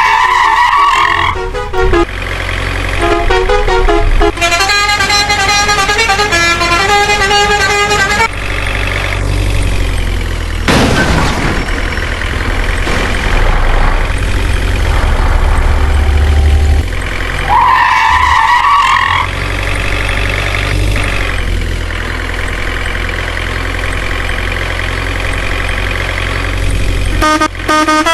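A heavy truck engine rumbling steadily, with a horn blast near the start and another about two thirds of the way through, a short noisy whoosh near the middle, and music-like tones in places.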